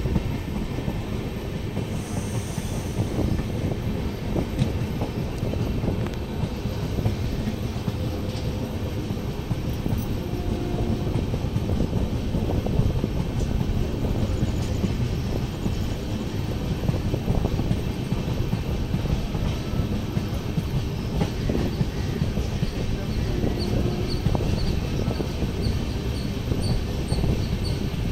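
Indian Railways passenger train running through a station, heard from an open coach window: a steady running noise of steel wheels on the rails.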